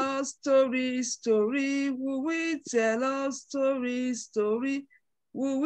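Singing voice: a slow, simple tune sung in short phrases of held, level notes, with brief breaks between phrases.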